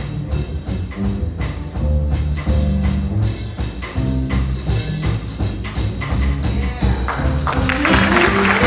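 Small jazz combo playing, with a prominent bass line and drums keeping time. Audience applause breaks out about seven and a half seconds in, over the music.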